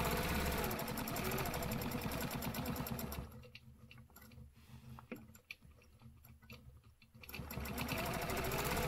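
Quilting machine stitching along an acrylic ruler, a fast, even needle rattle. About three seconds in it drops to a much quieter, uneven run for roughly four seconds, then speeds back up to full stitching near the end.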